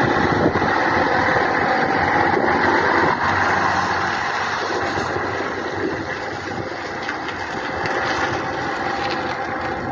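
Scania B111 bus diesel engine running, a steady heavy rumble that eases slightly in level after about three seconds.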